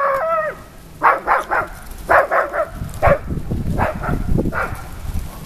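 Parson Russell terrier puppies yipping and barking in rough play: a high, bending yelp at the start, then quick runs of short barks, two or three in a row.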